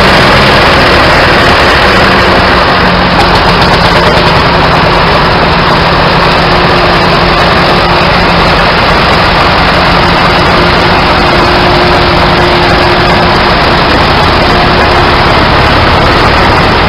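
Vintage steel-wheeled tractor's engine running steadily, loud and close.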